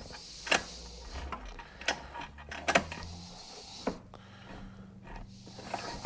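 Scattered light clicks and knocks, about five, of a small generator engine being turned over slowly by hand through its recoil starter, over a faint low hum. The engine is being rolled around to bring the next cylinder valves into position for a valve clearance check.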